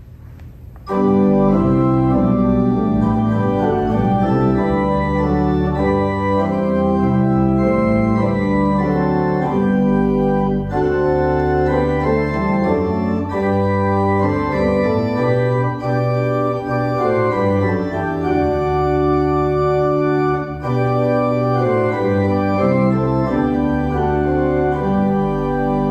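Church organ playing loud, held chords that change every second or two, starting about a second in.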